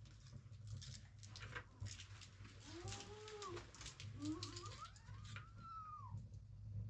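An animal calling twice, each call a drawn-out sound that rises and then falls in pitch, over scattered faint clicks and taps.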